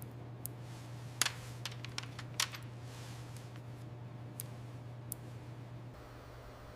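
Keys of a mechanical keyboard being pressed: about nine sharp, irregular clicks, most of them between one and two and a half seconds in, over a steady low hum.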